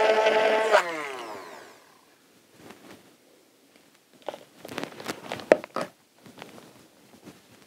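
Handheld stick blender running with a steady whine in a pot, switched off just under a second in and winding down with a falling pitch. Then a few light knocks and clinks of the blender against the pot.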